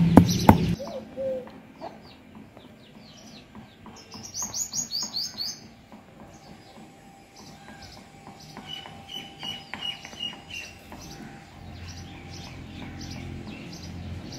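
A few sharp knocks in the first second, then birds chirping outdoors: scattered high calls, a quick run of chirps about four seconds in, and a repeated piping note from about nine to eleven seconds. A low steady hum comes in near the end.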